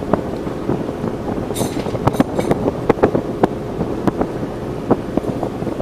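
Working deck of a tuna longline fishing boat at sea: a steady low rumble of machinery and wind, with a dozen or so sharp, irregular clanks and knocks of gear being handled.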